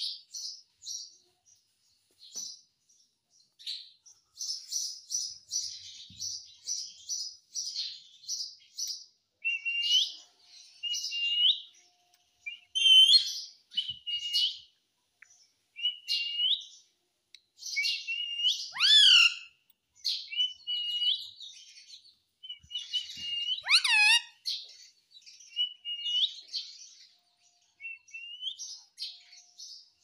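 Male Indian ringneck parakeet chirping: a quick run of short high chirps, then repeated short hooked calls. Two louder calls slide steeply down in pitch, about two-thirds of the way through and again near the end.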